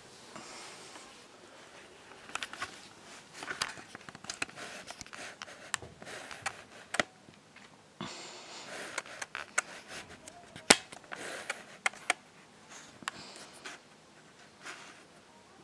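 Scattered light clicks, scuffles and rustling as two kittens scamper and play on a shaggy rug and hard floor, with one sharper click standing out past the middle.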